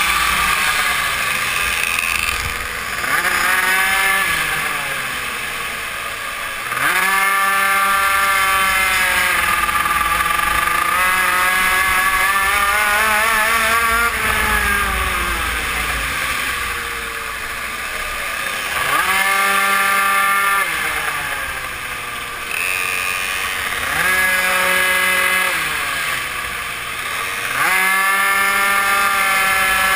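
GRC RR super mini moto's BZM engine at full race revs, heard from the bike itself: it screams up in pitch about five times as the throttle opens out of the corners, holds high on the straights, then falls away as the throttle shuts for the bends.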